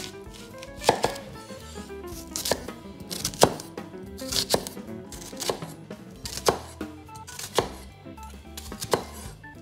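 Kitchen knife chopping on a cutting board: about eight sharp knocks, roughly one a second, over light background music.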